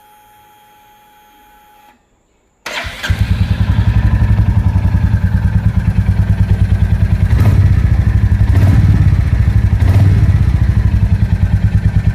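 A faint steady electronic tone for about two seconds. Then, after a short pause, a Royal Enfield Bullet's J-series single-cylinder engine starts and settles into a steady, rhythmic idle thump, with a few brief sharper blips near the end.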